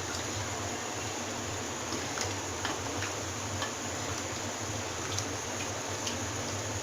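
Vegetable and lentil curry simmering in an open pot on the stove: a steady hiss with scattered faint pops and ticks.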